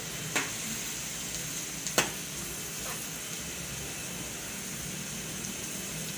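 Bitter gourd, onions and tomatoes sizzling steadily in a steel pan as they are stirred with a metal slotted spoon, which clinks sharply against the pan twice, about half a second and two seconds in.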